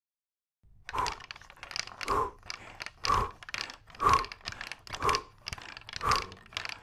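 Six rhythmic breathy huffs, about one a second, in time with hard pedalling of a stationary exercise bike in a cartoon sound track.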